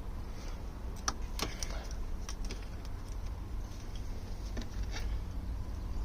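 Scattered, irregular metallic clicks and taps of hand tools working on the bolts of a Morris Minor 1000's engine-mounted heater valve, over a low background rumble.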